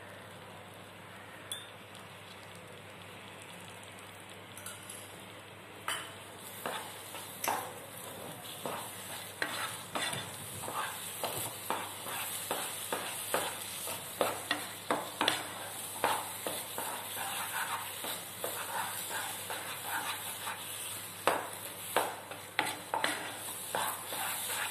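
Ghee sizzling in a pan of thick rava kesari, then a wooden spatula stirring and scraping the kesari round the pan in quick, irregular strokes from about six seconds in, over a steady frying hiss.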